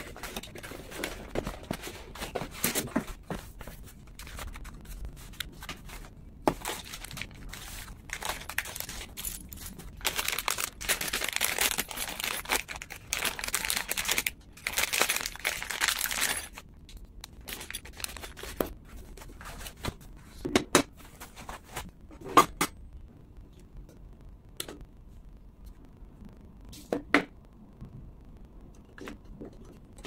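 Hand-handled packaging being unwrapped: rustling cardboard and foam, then a loud stretch of plastic-bag crinkling about a third of the way in that stops suddenly past the halfway mark. This is followed by a few scattered sharp knocks and clicks of hard parts being handled.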